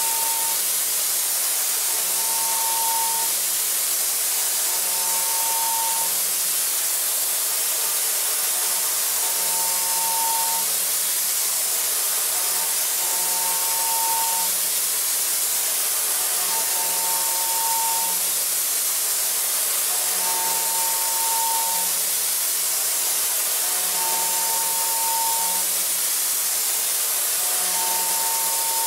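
High-speed milling on a DMG MORI CMX1100V vertical machining center, a Sandvik end mill cutting a metal block under coolant spray: a steady hiss with a cutting tone that comes in for about a second every three and a half seconds, in a repeating cycle.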